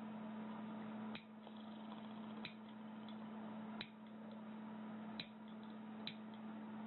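Nail clippers snipping nails: five sharp, separate clicks spaced a little over a second apart, over a faint steady hum.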